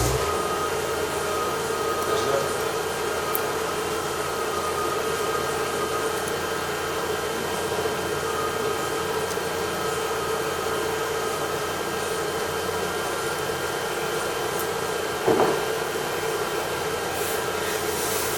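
A steady machine hum with a constant mid-pitched tone, and one brief knock about fifteen seconds in.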